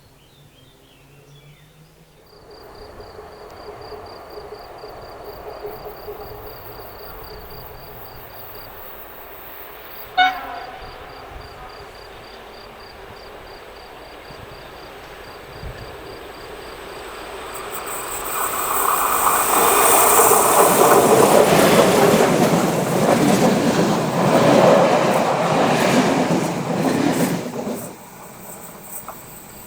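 Passenger train led by a Škoda 68E electric locomotive approaching and passing. A rumble builds, there is one very short horn blast about ten seconds in, then loud wheel-and-rail noise for about ten seconds as the train goes by, cutting off sharply as it clears.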